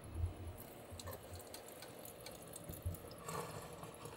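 Faint soft thumps and rustling as a barefoot person climbs up onto a wooden countertop, with a few light knocks.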